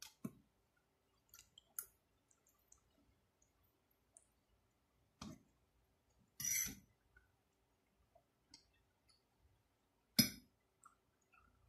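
Eating sounds: a metal fork knocking and scraping on a plate as spaghetti is twirled, a handful of separate clinks with faint mouth and chewing clicks between them.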